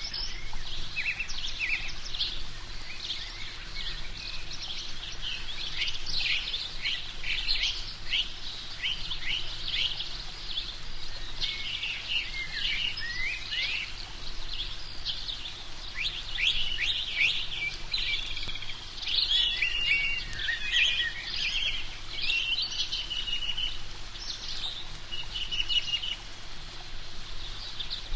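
Several birds chirping and calling at once, many quick high notes overlapping without a break.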